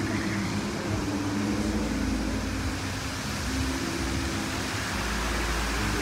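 Water jets of a Las Vegas musical fountain rushing and spraying, with the show's music playing slow held low notes that shift every second or two.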